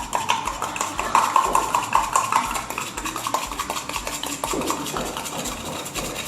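A utensil stirring slime mixture of glue, baking soda and boric-acid water in a pot, with rapid clicking and scraping against the container as the activator is worked in.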